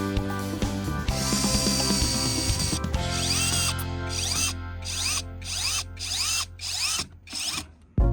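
A small power tool, such as a drill, run in short bursts about twice a second. Its pitch rises and falls with each burst, over background music in the first few seconds.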